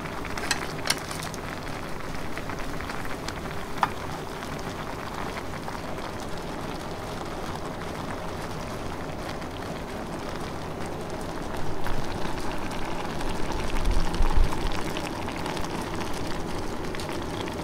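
Maggi noodle soup boiling in a small aluminium pot over a solid fuel-tablet camping stove: a steady hiss with fine crackle. A few sharp clicks come in the first four seconds, and louder low knocks about twelve and fourteen seconds in.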